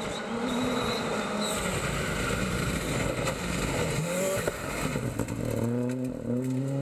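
Rally car at full throttle on a gravel stage, its engine note mixed with a noisy rush of gravel and tyres. Near the end the engine note climbs, breaks at a gear change and climbs again.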